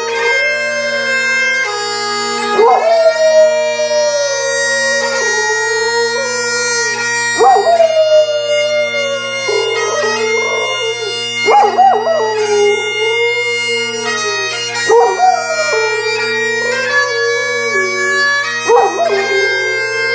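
Bagpipe playing a tune over its steady drones while a dog howls along, several long howls that each rise and then slide down in pitch.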